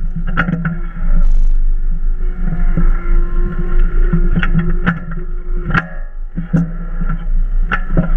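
Hitachi EX22 mini excavator's diesel engine running steadily while the hydraulics swing and position the boom-mounted log splitter, with a brief steady whine near the middle. Irregular sharp clicks and knocks rattle throughout.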